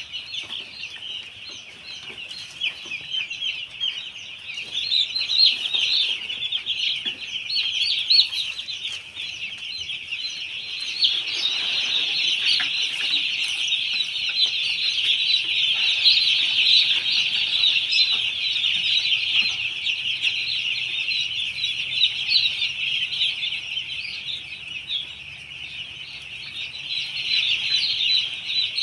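A flock of broiler chickens calling, many short high-pitched calls overlapping into a dense, continuous chorus that swells in the middle and eases toward the end.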